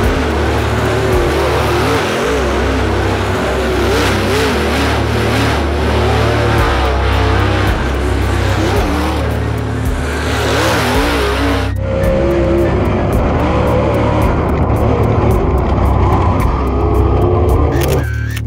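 Super late model race car engines running at speed on a dirt track, their pitch wavering as they rev, under background music with a steady bass beat. About two-thirds of the way through, the sound cuts to a single car's engine heard from inside its cockpit.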